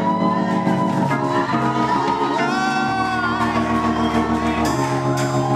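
Live worship music: sustained keyboard chords over a steady bass, with a singer's voice gliding through a melody line, echoing in a large hall.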